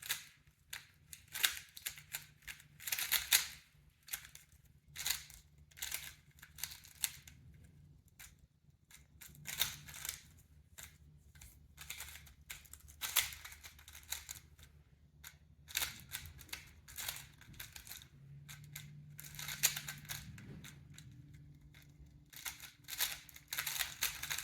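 Tornado V3 3x3 speedcube being turned fast during a timed solve: clusters of rapid plastic clicking and clacking as the layers snap round, with brief pauses between runs of turns.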